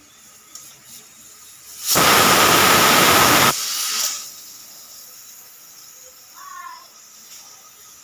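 Aluminium pressure cooker's weighted whistle blowing off steam: a loud hissing whistle with a steady tone starts about two seconds in and lasts about a second and a half. It then drops to a softer hiss that stops about four seconds in. The whistle is the sign that the cooker has reached pressure and the weight is lifting to vent steam.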